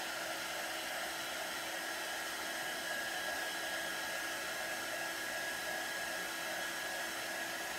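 Handheld blow dryer running steadily on the chalk paste of a wooden sign, a continuous rush of air with a faint steady whine of the motor.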